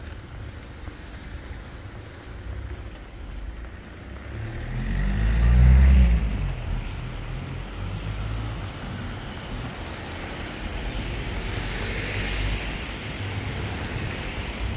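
A car passing on the wet road, swelling to its loudest about six seconds in with engine rumble and the hiss of tyres on wet tarmac, then fading. A second, gentler swell of tyre hiss from another passing vehicle follows later.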